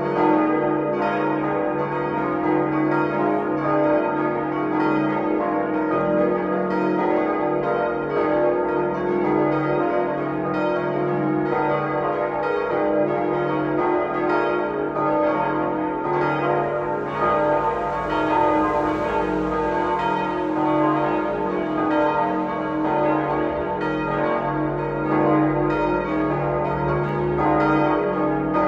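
Several church bells of the Liebfrauenkirche ringing together in a full peal, their strokes overlapping several times a second.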